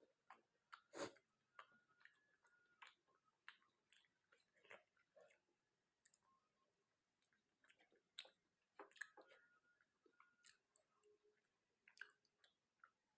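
A person chewing chicken and rice close to the microphone: faint, irregular mouth clicks and smacks, the loudest about a second in.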